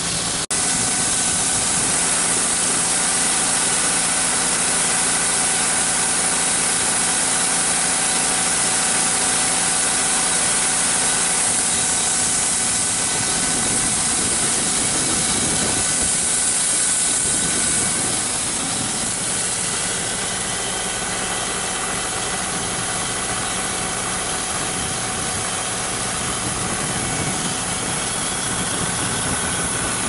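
Engine running steadily to drive a grain auger, with shelled corn pouring from a grain truck into the auger hopper as a steady rush over the engine.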